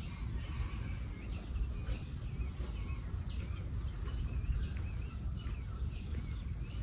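Birds chirping and calling again and again, short wavering chirps, over a steady low rumble.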